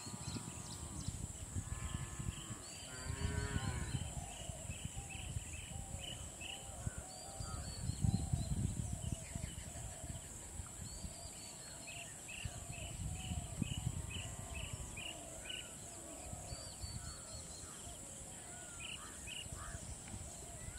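Outdoor ambience of birds calling over and over in runs of short repeated notes, above a steady high insect drone. Swells of low rumbling noise come and go a few times.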